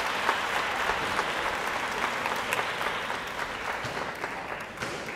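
Crowd applauding, with many separate hand claps, slowly dying down over the few seconds.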